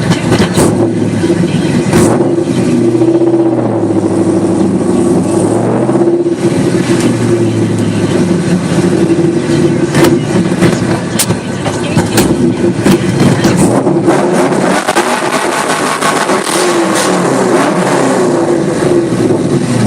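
Camaro's 6.0 L LQ4 V8 engine running under way, heard from inside the car, its pitch rising and falling as it accelerates and eases off several times.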